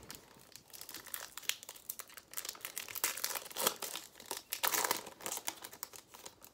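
Trading-card pack wrappers crinkling and tearing as a pack is opened and the cards are handled: a run of crackly rustles, loudest about three and a half to five seconds in.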